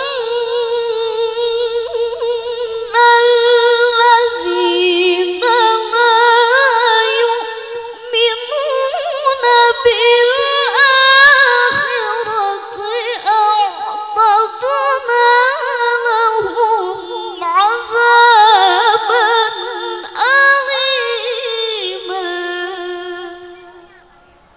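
A woman's voice in melodic Quran recitation (tilawah) sung into a microphone: long held notes with wavering trills and melismatic runs that climb and fall through the maqam. The phrase fades away near the end.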